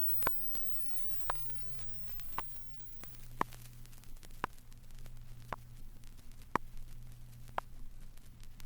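Vinyl LP surface noise: a steady hiss and low hum, with a sharp click repeating at even spacing about once a second. The test record's frequency sweep has risen past the limit of hearing, so no tone is heard.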